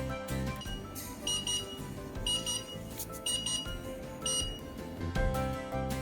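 Digital alarm clock's electronic alarm beeping in four short bursts about a second apart, over background music.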